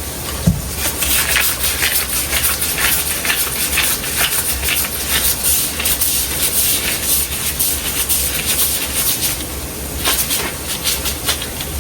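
Fry dumplings sizzling and crackling steadily in hot oil in a frying pan, with one light knock about half a second in.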